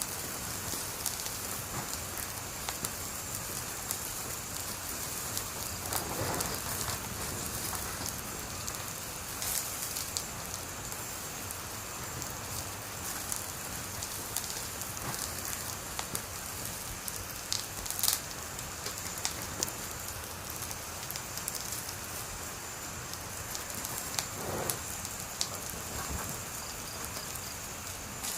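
Wood fire burning: a steady hiss with scattered crackles and pops, one sharper pop about 18 seconds in.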